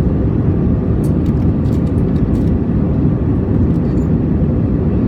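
Steady roar of an Airbus A321 in flight, engines and airflow heard from inside the passenger cabin, deep and unchanging, with a few faint clicks between about one and two and a half seconds in.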